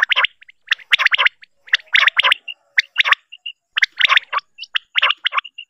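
Quail calling: groups of two to four short, clipped notes in quick succession, repeating about once a second. It is a quail-call recording of the kind played to lure quail for catching.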